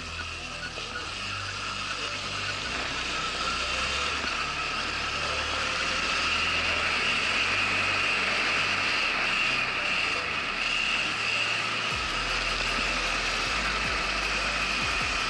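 Electric enduro motorcycle riding along, its electric motor giving a steady whine that grows a little louder over the first few seconds.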